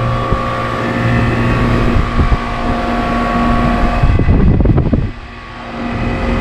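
Goodman central air-conditioner condenser running: a steady electrical hum from the compressor with the outdoor fan. About four seconds in comes a brief rough rumble, then the hum drops for a moment before it comes back.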